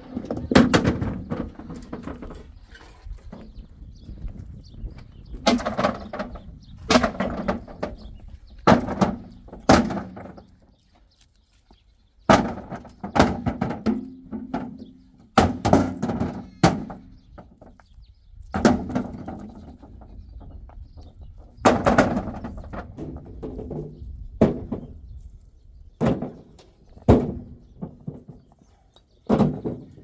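Rocks thrown by hand, one after another, landing in a tractor's trailer. Each lands with a loud knock and a brief ringing, about one a second, with a couple of short pauses.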